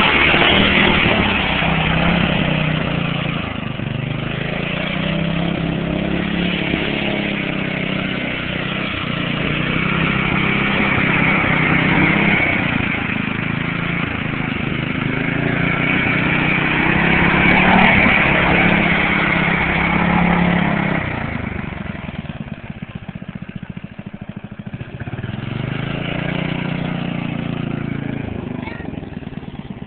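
Riding lawn mower engine running loud, its pitch rising and falling as it is driven over rough ground; it eases off a little after twenty seconds and picks up again a few seconds later.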